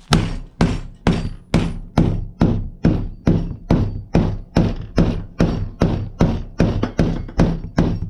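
Steady, evenly paced hammer blows, about two to three a second, driving a new roll pin through a VW Beetle pedal and its shaft, a tight fit.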